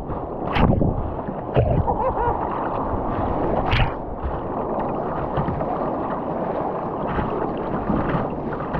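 Whitewater rushing and churning around a kayak running a rapid. Two sharp splashes come about half a second and nearly four seconds in.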